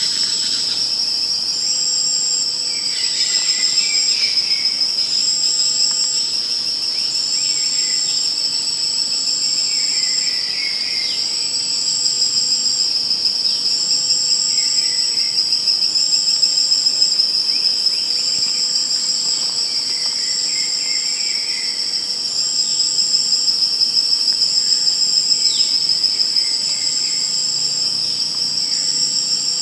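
Insects, crickets among them, trilling together: one steady high trill, with a higher trill over it that repeats in bouts of about a second with short breaks, and softer, lower chirps every few seconds.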